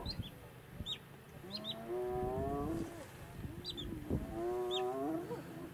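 An animal calling three times, about two seconds apart: each call is drawn out for about a second, full of overtones, and bends upward in pitch. Short high bird chirps sound between the calls.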